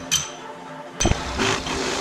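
Steel brackets clinking against each other and the bench vise as they are handled: two sharp metal knocks about a second apart, each with a brief ringing, and a lighter clink after the second.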